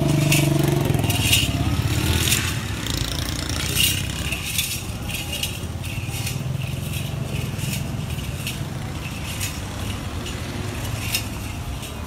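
Jingling of a decorated bull's neck ornaments as it is led along: short irregular chinks every half second to a second, over a steady low rumble.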